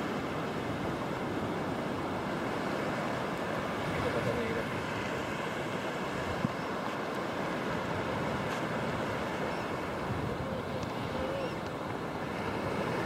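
Surf breaking on a shallow sandy beach, a steady rush of waves mixed with wind buffeting the microphone. One sharp click sounds about six and a half seconds in.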